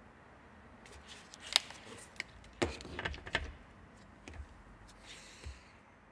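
Scattered clicks and knocks of a dashboard panel and its wiring loom being handled and set down on a workbench, busiest between about one and three and a half seconds in, with a short rustle near the end.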